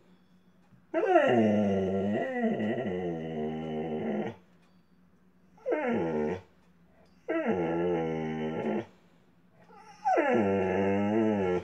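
A dog begging for food at the table with drawn-out, howling whines: four calls, the first about three seconds long, each wavering in pitch and dropping at its end.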